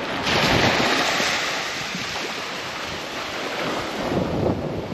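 Small waves breaking and washing up the beach, one surge swelling about a quarter second in and easing off over the next couple of seconds, with wind buffeting the microphone.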